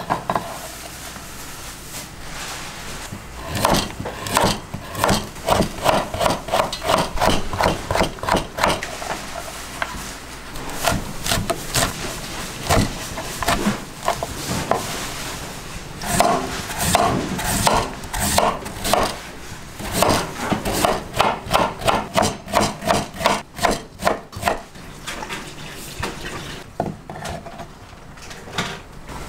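Preparing vegetable tempura ingredients by hand: runs of quick rhythmic rubbing and scraping strokes, about three to four a second, with short pauses between the runs.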